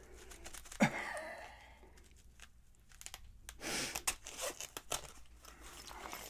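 A lock pick case being opened and the picks handled: a sharp click about a second in, then rustling with quick light clicks of the metal picks.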